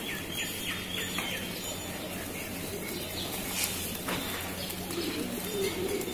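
Feral pigeons cooing, low wavering calls near the end, with a small bird giving a quick run of short falling chirps in about the first second. A steady low hum runs underneath.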